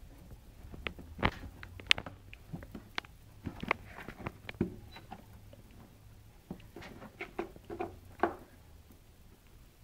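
Cats' claws scratching and picking at torn cardboard on a box, in irregular short scratches and taps, a few of them sharper.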